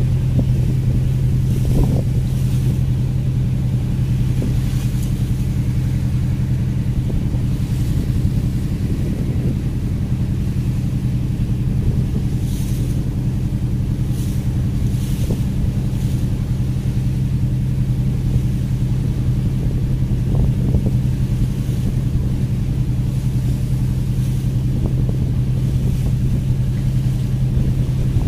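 Fishing vessel's engine running steadily under way: a constant low drone with a strong, unchanging hum, with light wind on the microphone.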